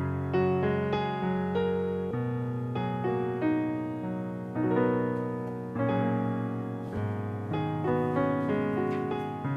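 Background music: a solo piano playing a slow, gentle melody over sustained chords.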